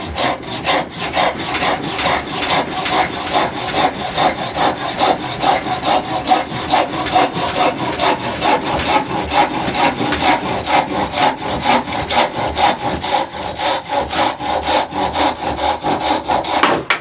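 Silky Sugoi pull saw with a freshly resharpened blade cutting through hard sugar maple firewood: fast, even strokes, about four a second, stopping suddenly near the end.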